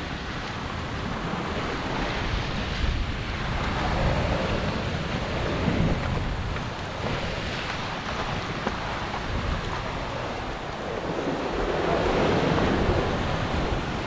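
Sea surf washing against a rocky shore, with wind buffeting the microphone; the wash swells up twice, about four seconds in and again near twelve seconds.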